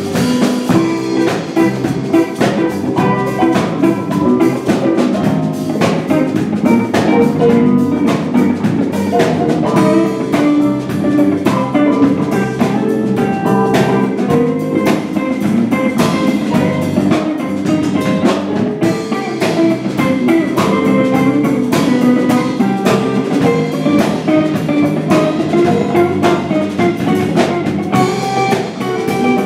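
Live band playing an instrumental number on electric guitar, keyboard and drum kit, with the drums keeping a busy, steady beat under the melodic lines.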